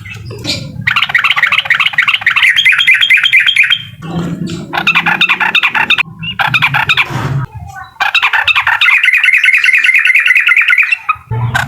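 Yellow-vented bulbul (trucukan) singing its 'uklik' song: loud, rapid chattering runs of repeated notes in three long bursts with short pauses between them. A low rumble sits under the middle burst.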